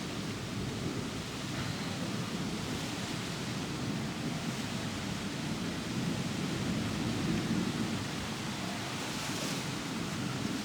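Thunder from a supercell storm rumbling on without a break over a steady hiss of rain, swelling a little about seven seconds in.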